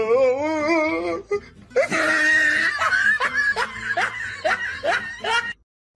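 A person laughing hard: a long wavering cry of laughter, then a fast string of laughing bursts.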